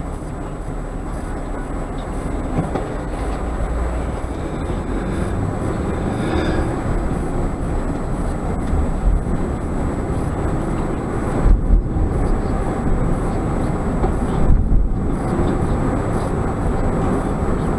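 Steady road and engine noise inside a moving car, with a couple of low thumps about twelve and fifteen seconds in.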